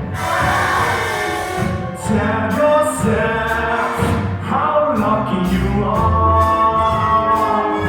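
Music with a group of voices singing together over instrumental accompaniment.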